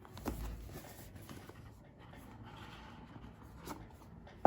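Faint scratching and rustling of a smartphone's cardboard box and packaging being handled and opened, with a few light taps.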